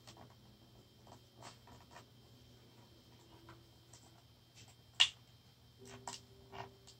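Scattered light plastic clicks and rubbing from handling a travel power strip and its wound-up cord, with one sharp snap about five seconds in as the cord is clipped back into place.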